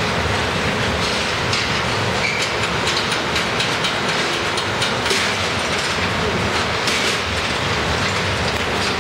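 Loud, steady machinery noise with irregular faint clicks and crackles scattered through it.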